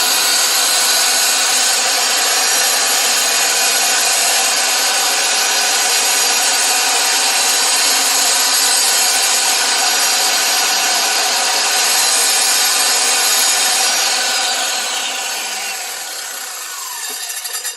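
Wet/dry power cutter grinding through hard rock, a loud, steady whine with a rasping edge. About fourteen seconds in it is switched off, and its whine falls in pitch as the blade spins down.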